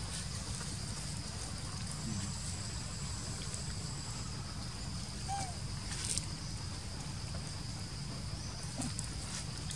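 Forest ambience: a steady low rumble under a constant high insect drone, with a few soft rustles and clicks on the leaf litter, the sharpest about six seconds in, and one faint short squeak about five seconds in.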